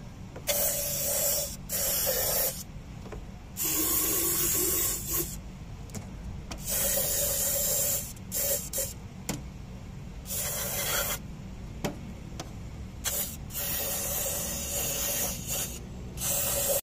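Aerosol can of foaming carbon cleaner sprayed through a thin extension straw in about eight short hissing bursts of a second or so each. The foam is being driven into the engine's intake ports to loosen hard carbon deposits.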